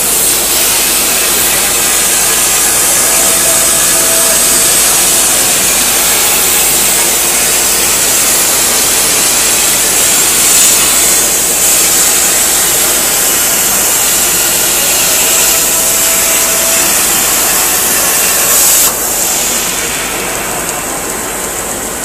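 CNC cutting torch running steadily with a loud hiss, strongest in the high range, and a faint thin whine that comes and goes twice. Near the end the level drops suddenly and the hiss thins.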